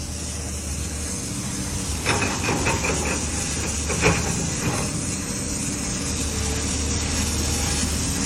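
Diamond wire saws running, the wire cutting through stone: a steady hissing machine noise over a low hum, with a short run of clicks about two seconds in and a knock about four seconds in.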